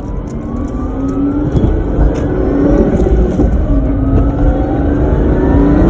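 Supercharged Toyota 2JZ-GE inline-six in a Lexus IS300 accelerating hard, its pitch climbing several times and dropping back as it shifts up through the gears. A thin whine from the belt-driven Powerdyne centrifugal supercharger rises with the engine, running on low boost of about 3 psi.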